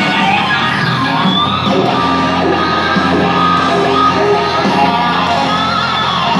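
Music with singing playing from a CD through a Honda Gold Wing GL1800 motorcycle's audio system and speakers, loud and steady.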